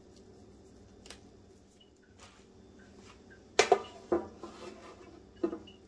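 Aluminium baking pan knocking against another pan as it is set over the dough as a cover: a few light taps, then a pair of sharp metal clanks with a short ring about three and a half seconds in, and more knocks just after and near the end.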